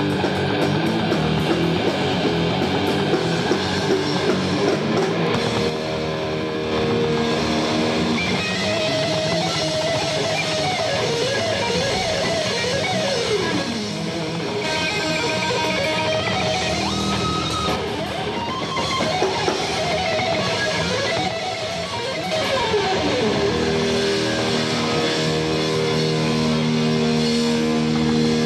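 Heavy metal band playing live, with distorted electric guitars over drums. Fast riffing gives way to guitar lead lines that slide up and down in pitch, and it ends on held notes.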